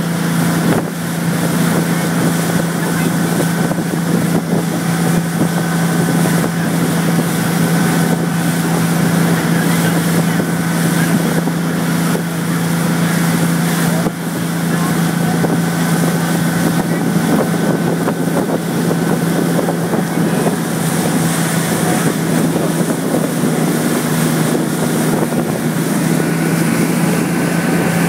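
Motorboat engine running at a steady pitch while towing a parasail on its line, with wind buffeting the microphone.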